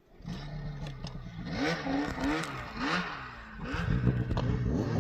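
Snowmobile engine running and revving, its pitch rising and falling, cutting in suddenly and getting louder near the end.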